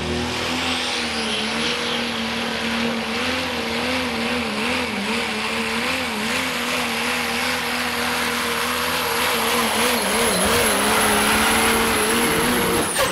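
Pro Stock diesel 4x4 pulling truck, a second-generation Dodge Ram, pulling under full load with black smoke: a steady engine drone that wavers in pitch, and over it the turbocharger's high whistle, which rises in the first second and then holds. Near the end the whistle and the engine pitch drop together as the throttle comes off at the end of the pull.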